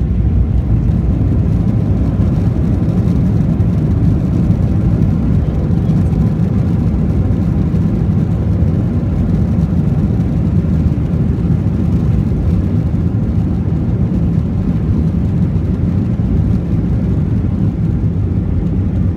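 Steady low rumble inside a jet airliner's cabin: the underwing turbofan engine and airframe noise as the plane taxis along the runway after landing.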